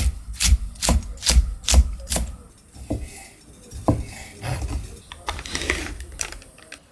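Knife chopping on a cutting board at a steady two to three strokes a second, stopping a little after two seconds in. A few scattered knocks and light rustling follow.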